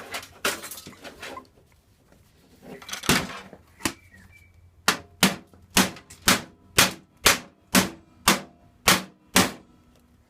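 Some clatter, then a run of about ten sharp knocks, about two a second, from striking a stuck drive in an old computer's steel case to knock it loose.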